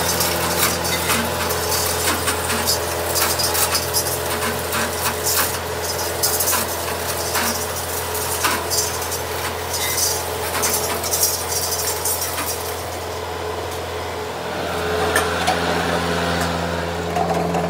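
Steady low engine hum under a run of sharp metal clinks and knocks from a chain-hung truck axle housing being handled; the knocks thin out about two-thirds of the way through.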